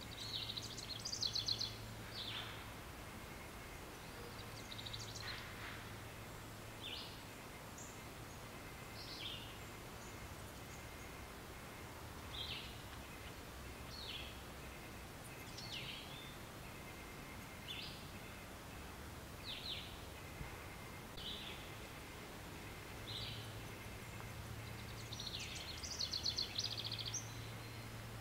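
Woodland birds: a rapid, high trilled song about a second in and again near the end, and between them a short, high, down-slurred call note repeated every second or two, over a faint low hum.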